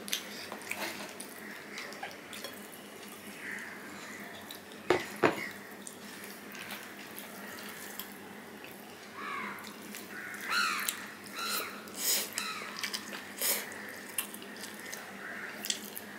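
A hand squishing and mixing cooked rice with a leafy green stir-fry on a plate: soft wet squelching sounds. Two sharp clinks of dishware come about five seconds in, and a run of louder wet squelches and smacks follows a few seconds later.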